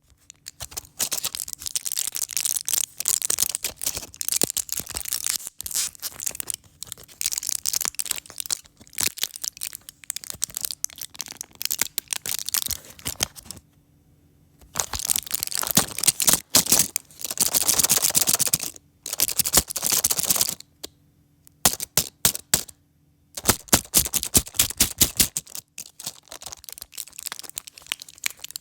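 A pack of pill tablets being handled and squeezed: crinkling and rapid clicking in spells, broken by a few short pauses in the second half.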